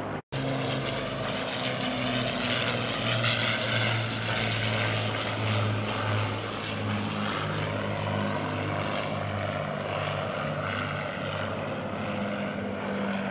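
Avro Lancaster's four Rolls-Royce Merlin piston engines droning in a flypast. Several close engine notes run together, their pitch wandering slightly. The sound cuts out for an instant just after the start.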